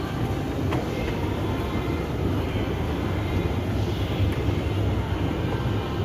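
Indoor shopping-mall ambience: a steady low rumble with a few faint clicks.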